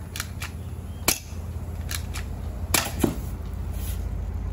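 Taurus PT 92 replica airsoft pistol firing several shots at a soda can, each a sharp snap, the loudest about a second in and near three seconds, with fainter clicks between. One BB strikes the aluminium can and knocks it over.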